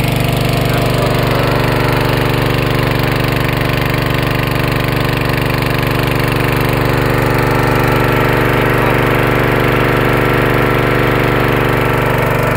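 Small single-cylinder four-stroke water pump engine running steadily on LPG from a 3 kg gas cylinder, fed through a gas converter on the carburettor.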